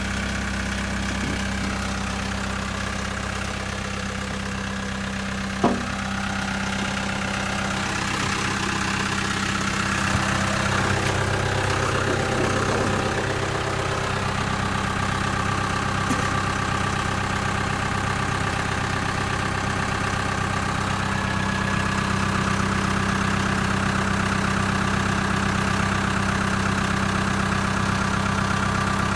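Caterpillar 252B skid steer loader's diesel engine idling steadily, with one sharp click about six seconds in.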